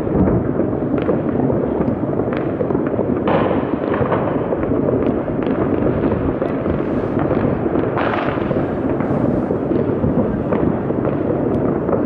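Dense, unbroken din of many fireworks and firecrackers going off at once, with sharper single bangs standing out about three seconds in and again about eight seconds in.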